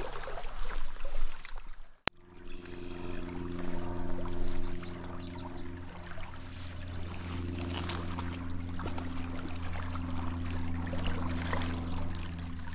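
Stream water rushing. About two seconds in the sound cuts off abruptly, and from then on a steady low hum runs under fainter water noise and small handling ticks.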